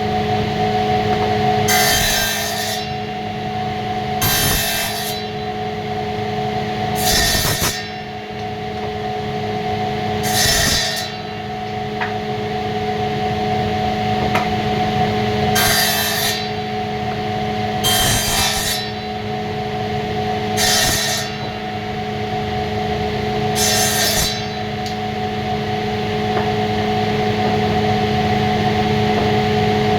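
Electric woodworking machine running with a steady motor hum, cutting wood in about eight short passes, each lasting under a second.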